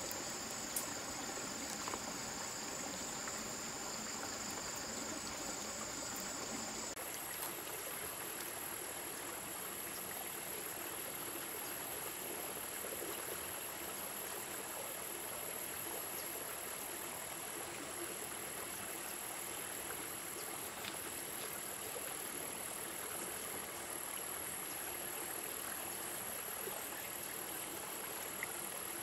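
Stream water flowing, with insects singing in a steady high trill over it. About seven seconds in, the trill switches abruptly to a higher-pitched one.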